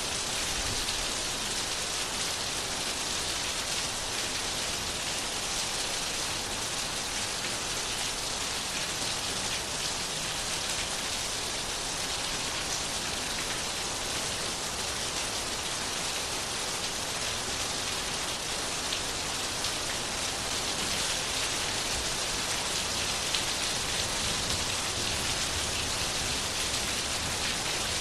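Steady rain falling and pattering on a surface, an even hiss with fine drop impacts that keeps the same level throughout.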